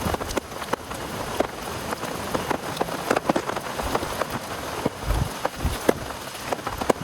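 Heavy rain falling steadily, with many separate drops ticking sharply on a surface close by.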